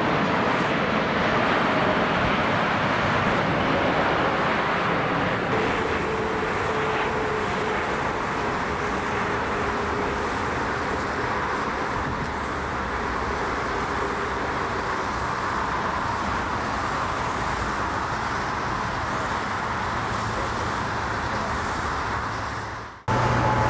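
Steady jet engine noise of a Boeing 747 on final approach and landing, mixed with motorway traffic noise, with a faint whine gliding slowly down in pitch. The sound cuts off abruptly near the end.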